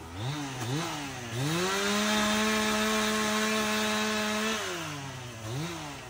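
Two-stroke chainsaw revved twice in quick blips. It then climbs to full throttle, holds a steady high pitch for about three seconds, and drops back to idle, with one more short blip near the end.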